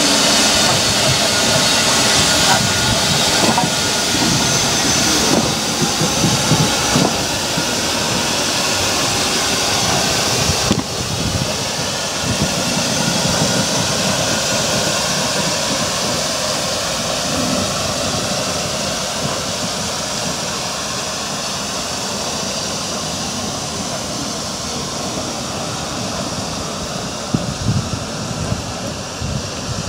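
LMS Fowler 3F 'Jinty' 0-6-0 tank engine 47406 with its coaches passing close by, steam hissing loudly over the running and rail noise. About a third of the way in the sound changes abruptly to the train working away more distantly, with gusts of wind on the microphone near the end.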